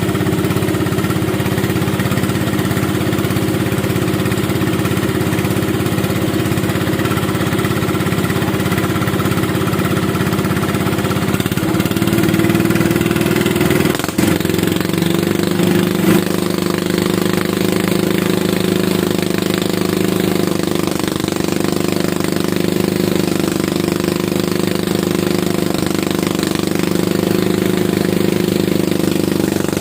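Engine of a rice harvesting machine running steadily under load, its pitch rising slightly about twelve seconds in, with a brief dip a couple of seconds later.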